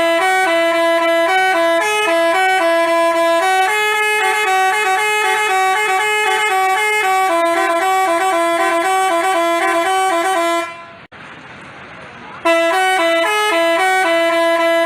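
Telolet basuri horn playing a tune of quick stepped notes. It breaks off for about two seconds after roughly ten seconds, then starts the tune again.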